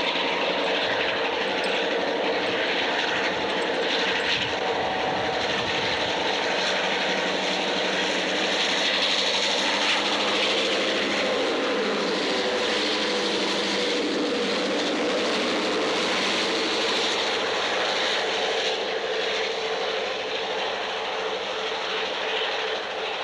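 Rio Grande EMD F9 diesel locomotives, their 16-cylinder two-stroke 567 engines running under load, pass close by with a loud, steady drone; the engine pitch drops as they go by about halfway through.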